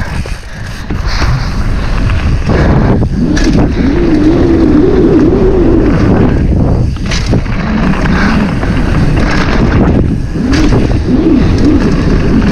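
Downhill mountain bike running fast over rough trail: loud tyre rumble and wind noise on the microphone, with several sharp knocks from bumps and a faint hum that wavers up and down.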